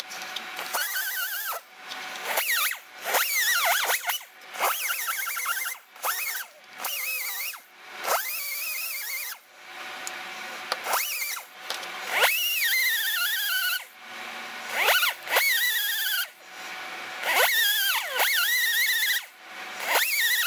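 Air-powered right-angle die grinder with a Roloc Scotch-Brite disc, run in about a dozen short bursts with brief stops between. Its high whine sags and recovers in pitch as it is pressed against the screwdriver's metal ferrule to buff off the last of the epoxy.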